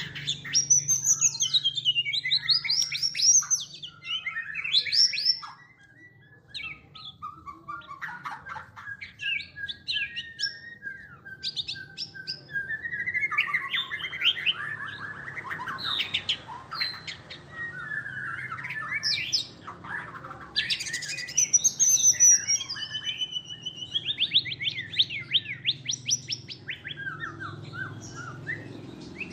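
White-rumped shama singing a long, varied song of loud whistles, pitch glides and rapid trills, with a softer patch a few seconds in and a long even whistle in the middle.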